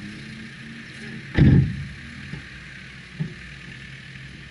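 Subaru Forester's flat-four engine idling steadily, with one loud thump about a second and a half in and two lighter knocks after it.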